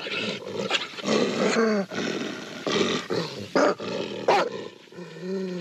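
German shepherd on a leash snarling and barking in a string of short, loud bursts, attacking a decoy in a padded bite suit: the aggressive attack response of a trained guard dog.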